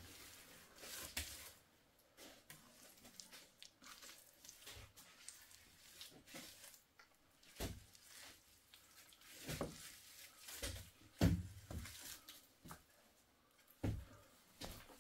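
A trowel and hands working wet mud plaster onto a clay stove: irregular soft scrapes and wet pats, with a few sharper knocks in the second half.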